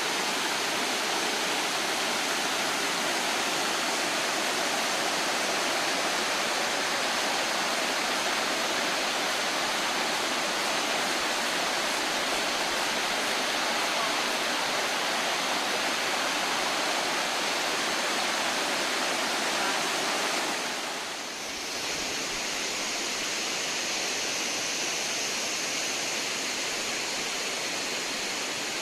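Waterfall: a steady rush of falling water. About two-thirds of the way in it dips briefly, then carries on with a brighter, hissier rush.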